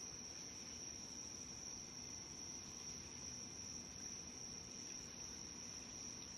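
Faint, steady, high-pitched drone of night insects.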